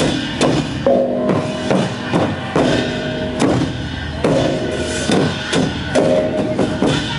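Lanna klong pu cha ensemble playing: large barrel drums beaten with sticks in a steady rhythm, with hand cymbals clashing and gong strokes ringing out at regular intervals, about every second and a half to two seconds.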